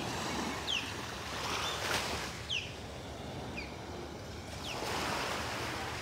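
Osprey calling: a series of short, high, falling whistles, about one a second, over the steady wash of gentle surf.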